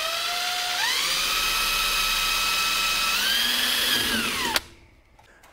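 DeWalt 20V cordless drill boring a pilot hole through the sheet-metal exhaust collar of a unit heater. Its motor whine steps up in pitch twice as the trigger is squeezed harder, holds, then winds down and stops with a click about four and a half seconds in.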